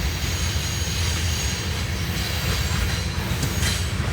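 CSX freight train cars rolling past: a steady rumble of steel wheels on rail, with a thin high wheel squeal faintly above it.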